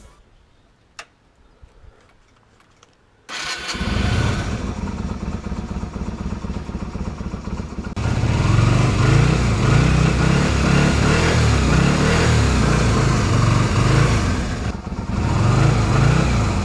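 Yamaha Virago 125's small air-cooled V-twin: a few faint clicks, then the engine starts about three seconds in and idles. From about eight seconds it runs louder, its pitch rising and falling as it is revved.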